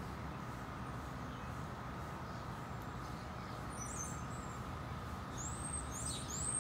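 Steady low rumble of background noise with a faint steady hum. From about four seconds in, a bird gives short high chirps, about two a second.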